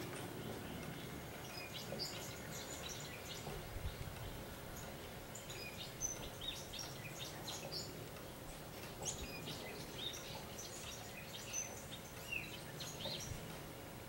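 Birds chirping: many short, high chirps scattered through, over a steady low background noise.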